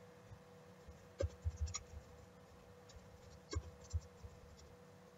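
Computer keyboard being typed on: faint key clicks in two short bursts, about a second in and again about three and a half seconds in.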